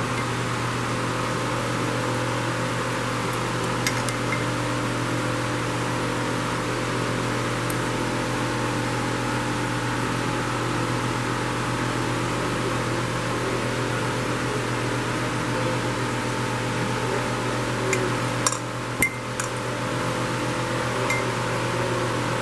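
Steady mechanical hum of a fan-like running machine, with a few small sharp clicks near the end as small metal carburetor parts are handled.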